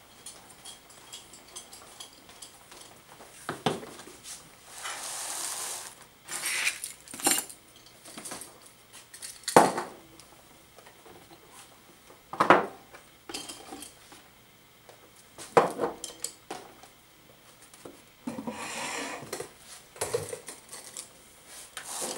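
A plastic crate and school supplies being set down and unpacked on a table: a sharp knock or clatter every few seconds, with stretches of rummaging and sliding between.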